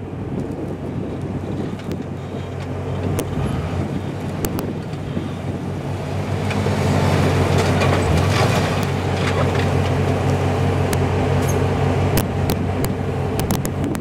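Lifted Jeep Wrangler's engine running under load as the rock crawler climbs a granite boulder, getting louder about halfway through as it pulls up the rock. Scattered sharp clicks and knocks run over the engine sound.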